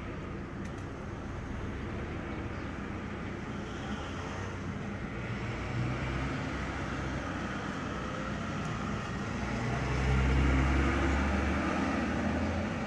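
Fire brigade vehicles driving out of the station yard: a red fire service van, then a fire engine moving off. The fire engine's engine grows loudest about ten seconds in as it pulls past, with no siren sounding.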